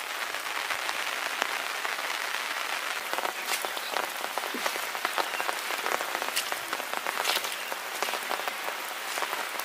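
Steady patter of rain: an even hiss with many scattered sharper drop clicks at irregular times.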